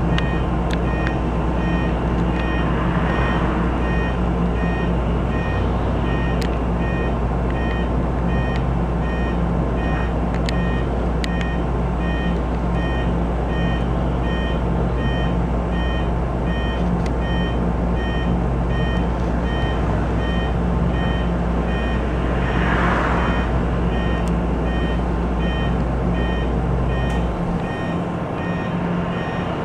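Inside a RAC EV Race 150 electric bus: a repeating electronic beep over a steady low hum, with a brief hiss a little over 20 seconds in. The hum cuts off shortly before the end.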